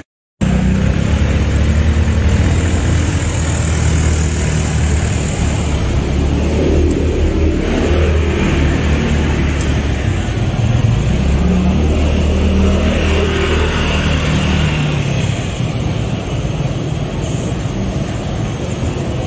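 Motor vehicle engines running in nearby road traffic, a steady low hum throughout. The sound cuts out briefly right at the start.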